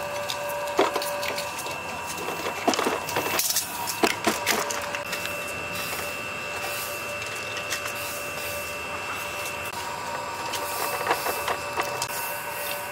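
Knocks and clatter of heavy dinosaur skeleton replica pieces and the metal frame being handled and fitted together, in several short clusters, the sharpest around three and four seconds in. Under them runs a steady whine of several tones that drops out about three seconds in and returns about two seconds later.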